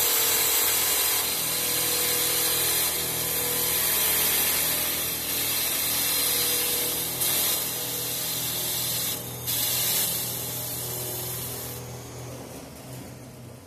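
Three-spindle CNC wood lathe turning wooden balusters: a steady hiss of the cutters shaving the spinning wood over the hum of the machine's motors. It fades away near the end.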